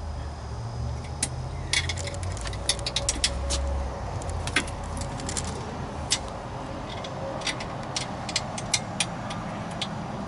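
Irregular metallic clicks and clinks of hand tools on steel seat-base bolts, with some quick runs of clicks, as the swivel base is bolted down. A low rumble underneath fades out about four seconds in.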